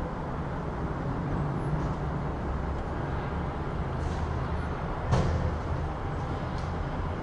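City street ambience: a steady rumble of road traffic, with a single sharp knock about five seconds in.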